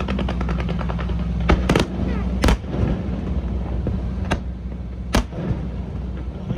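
Aerial fireworks shells bursting: about six sharp bangs at irregular intervals, with a faint crackle near the start, over a steady low rumble.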